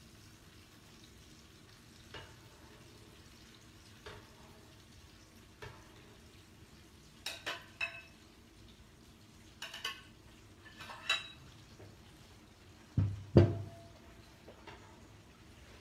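Steel ladle clinking and scraping against a frying pan and a bowl as beaten eggs are stirred into clam soup: scattered light clinks, a few quick clusters in the middle, and a louder knock with a dull thump near the end.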